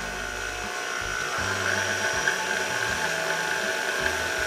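KitchenAid Artisan stand mixer running, its flat beater beating creamed butter and sugar as an egg is added. The motor gives a steady whine that steps slightly higher about a second and a half in.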